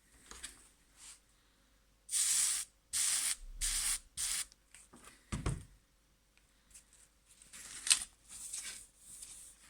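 Trigger spray bottle squirting water four times in quick succession, wetting the dented wing skin for steaming out the dent. A short low thump follows, then softer hissing and rubbing near the end.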